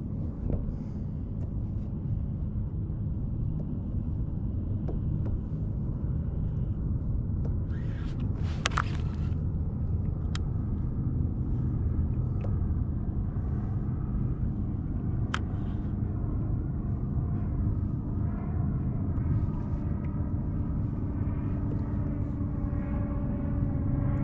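Wind buffeting the microphone on a kayak at sea: a steady low rumble, with a brief rush of noise about eight seconds in.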